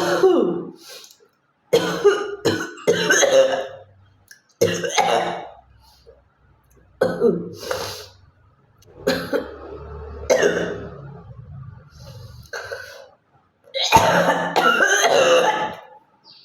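A woman coughing in a string of separate bouts, mixed with throat clearing, the longest bout near the end.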